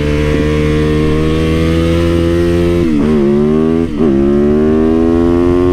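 Yamaha YZ450FX supermoto's 450 cc single-cylinder four-stroke engine pulling hard under acceleration. Its pitch climbs, drops sharply about three seconds in and again about four seconds in, and climbs again after each drop as it shifts up through the gears.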